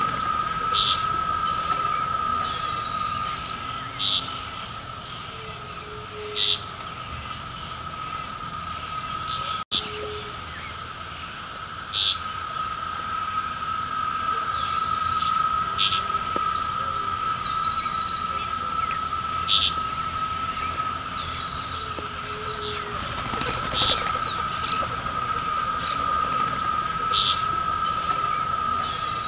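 Natural field ambience: a steady, high-pitched insect drone with many small birds chirping over it, and a short bright note repeating every few seconds.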